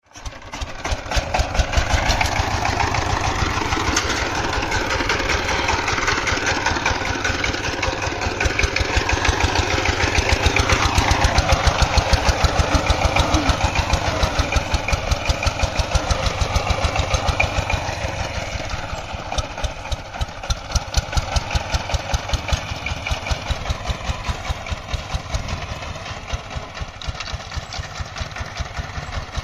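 Single-cylinder diesel engine of a two-wheeled power tiller running with a rapid, even exhaust beat, pulling a trolley loaded with soil.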